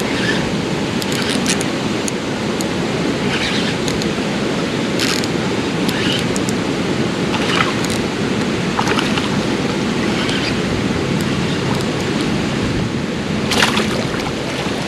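Steady rushing of flowing creek water, with a few brief hissy bursts on top, the clearest near the end.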